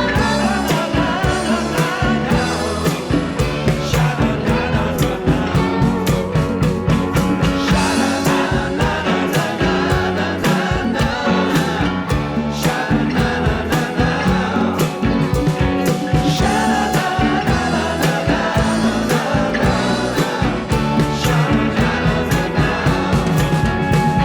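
Background song with a steady beat and sung vocals.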